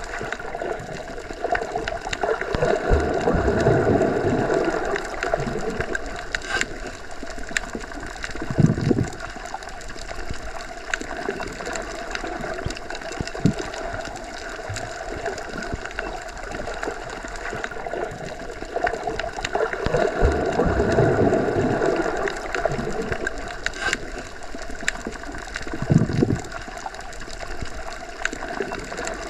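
Underwater ambience: a continuous rushing, gurgling water noise with scattered small clicks. It swells twice into a louder surge, a few seconds in and again about two-thirds through, with two brief low thumps.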